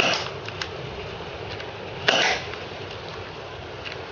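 HFC Colt .25 airsoft gas pistol, a propane-powered non-blowback pocket pistol, firing two shots about two seconds apart into a chronograph. Each shot is a short, sharp pop.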